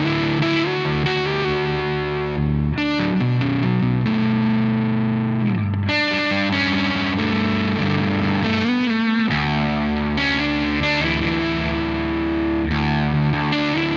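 Harley Benton Fusion-III HH electric guitar with humbucking pickups, played with a light overdrive crunch from a Nobleman pedal, a clone of the ODR-1. Ringing chords and riffs, with a quick strummed passage about three seconds in, notes sliding down in pitch around five and a half seconds in, and a bend near nine seconds.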